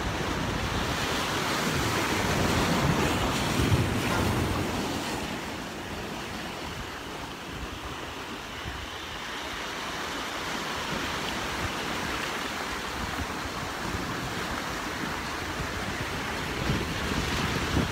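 Sea waves washing in and breaking on the shore, a steady rush of surf, loudest in the first few seconds, with wind on the microphone.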